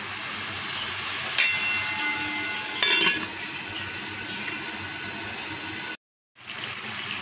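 Mince and onion filling sizzling steadily in an aluminium pan. Two metallic clinks, about a second and a half apart, as an aluminium lid is set on the pan; the second is the louder and rings briefly. The sound cuts out for a moment near the end.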